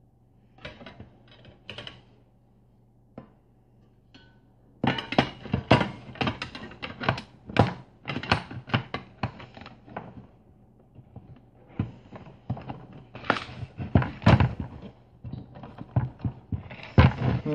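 Knocks, clicks and clattering of a metal-cased electronic unit and its cables being handled and moved about on a workbench: a few faint knocks at first, then dense, irregular clatter from about five seconds in.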